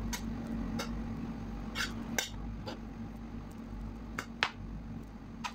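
Metal serving spoon stirring rice in a pot, clinking and knocking irregularly against the pot's side, over a steady low hum.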